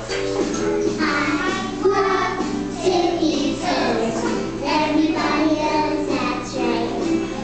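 A song playing, with children's voices singing along over the music.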